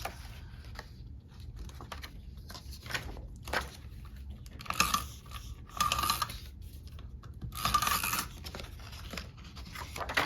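Adhesive tape drawn out and laid on paper pages in about four short rasping strokes, to stick two planner pages together.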